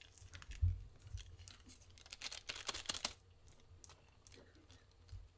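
Small plastic bag of baking soda crinkling and rustling as it is shaken out over a bowl of dough ingredients, a dense run of crackles about two to three seconds in. Two dull low thumps about a second in.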